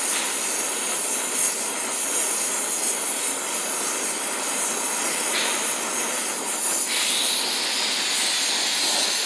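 Oxy-acetylene torch flame running with a steady hissing rush while heating a copper-to-steel pipe joint for brazing. The copper is not yet hot enough for the silver solder to flow.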